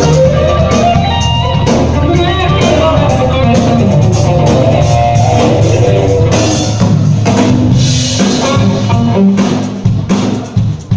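Loud rock music with guitar and drum kit, starting suddenly at the beginning.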